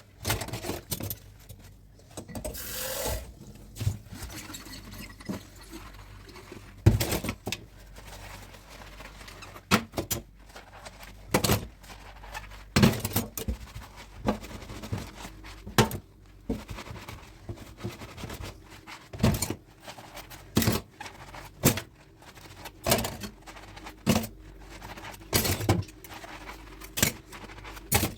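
Dishes and utensils knocking and clinking against each other and the sink during hand washing, a sharp knock about every second or so, with a short hiss about three seconds in.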